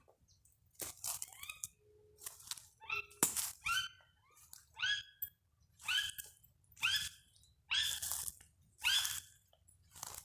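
Chaco chachalacas (charatas) calling: a string of short, harsh, raucous calls about once a second, growing louder toward the end, with a single sharp click about three seconds in.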